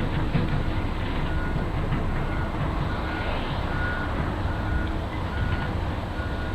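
Caterpillar 330 hydraulic excavator travelling on its tracks: the diesel engine running steadily under a low rumble of track noise, with the travel alarm beeping at an even pace a little faster than once a second.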